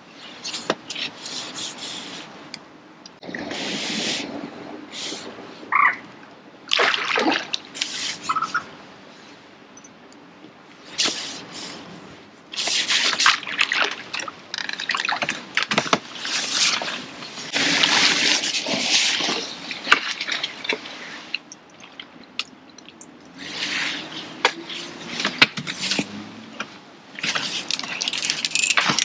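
A hooked fish splashing and thrashing at the water's surface in irregular bursts as it is played on a pole close to the bank.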